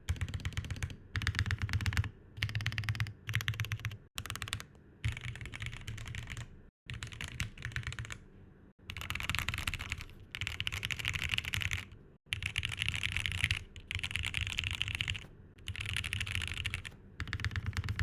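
Typing on a TGR Jane v2 ME O-ring-mounted mechanical keyboard with lubed vintage Cherry MX Black linear switches and MONOKEI Series 1 keycaps: fast runs of deep keystroke thocks in bursts of a second or two, with short pauses between.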